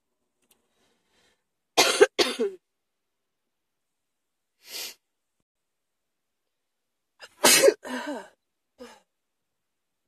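A person coughing in two bouts, each a quick run of harsh coughs: one about two seconds in and a louder one about seven and a half seconds in, with a last small cough just after it.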